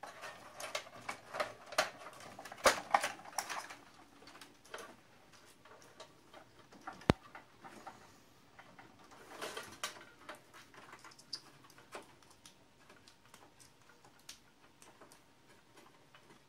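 Computer power cables and plastic connectors being handled and plugged in: a cluster of light clicks and rattles, one sharp click about seven seconds in, a short rustle, then scattered faint ticks.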